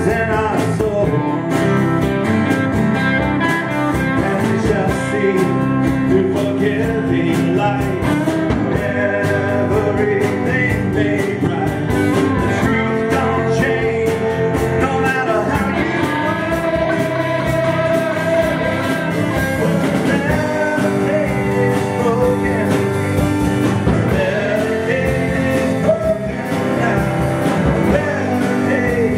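Live rock band playing: acoustic guitar, electric guitar, electric bass and a drum kit, steady and loud.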